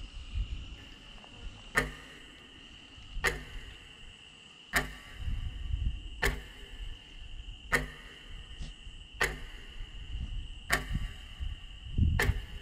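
Countdown sound effect: a sharp clock-like tick about every one and a half seconds, with a steady high insect whine and a low rumble beneath.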